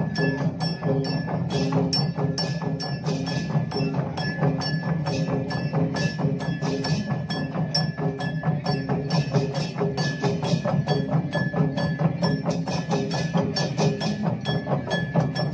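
A massed group of okokan, the large Balinese wooden cattle bells, knocking and clattering together in a fast, steady rhythm, played with other percussion.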